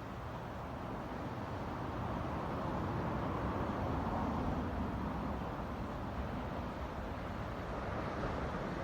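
Sea waves washing onto the shore, a steady rush of surf that swells to a peak about halfway through and eases off again.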